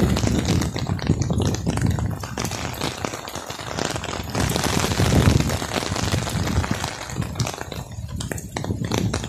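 Steady rain falling, with many close drops tapping and a low rumble that swells and fades, loudest about five seconds in.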